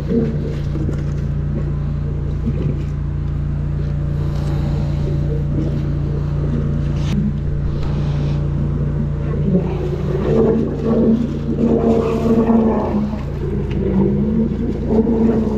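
Engine of a high-pressure drain jetter running at a steady drone while its hose jets water down a sewer drain. From about ten seconds in, a wavering higher note sits over the drone.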